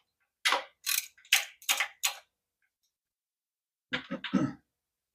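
Ratchet wrench with a spark plug socket being worked in quick short strokes to loosen a spark plug, a sharp burst of clicking about twice a second, five times. About four seconds in comes a shorter, duller clatter.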